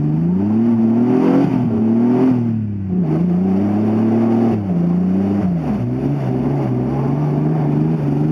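2000 Ford Explorer's engine revving up and down several times, then holding at a steadier, lower pitch for the last couple of seconds, as its wheels spin in mud.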